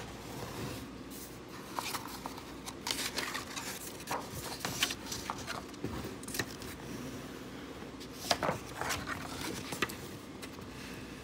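Pages of a picture book being handled and turned: a scatter of short, irregular paper rustles and scrapes.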